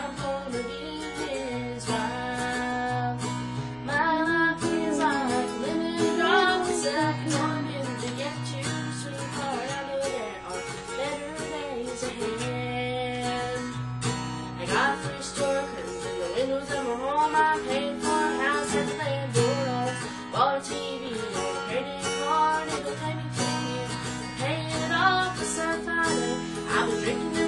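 A woman singing a country song while strumming an acoustic guitar.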